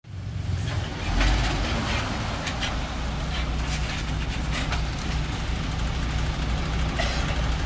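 MAN TGS 26.320 rubbish truck's six-cylinder diesel engine running at low speed as the truck pulls in, a steady low rumble that grows louder about a second in, with a few short hisses over it.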